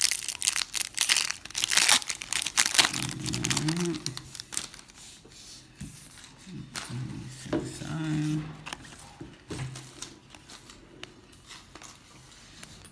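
Foil wrapper of a Topps baseball card pack crinkling and tearing open, loudest in the first three seconds, then fainter scattered crinkles and clicks.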